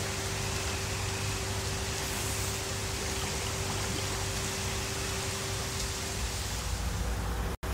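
Steady wash of pool water with a swimmer moving through it, over a low hum and a faint steady tone. The sound drops out for an instant right at the end.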